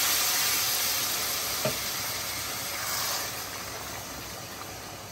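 Hot water from a kettle pouring into a hot pot of spiced rice and vegetables, hissing and sizzling as it hits the pan, the hiss gradually dying down. A light tap about a second and a half in.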